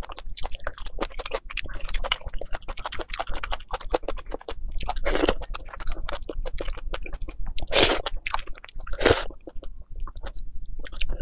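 Close-miked eating of braised beef marrow bones: crunching and chewing on gristly cartilage and marrow, with many small wet mouth clicks. A few louder, longer mouth sounds come about five, eight and nine seconds in.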